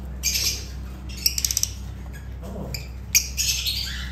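Lovebirds squawking: harsh screeching calls shortly after the start and again just past three seconds, with a quick run of chattering notes about a second and a half in. A steady low hum runs underneath.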